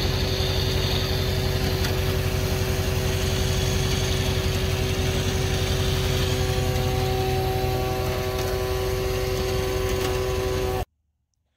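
A vehicle engine idling steadily, with a constant low hum and a few held tones. The sound cuts off suddenly near the end.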